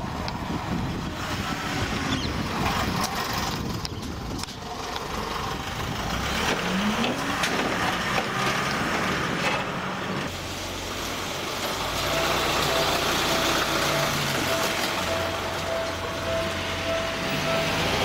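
Road traffic noise: the engine and tyre rumble of cars and small trucks on the move. About two-thirds of the way in, a steady high tone joins it.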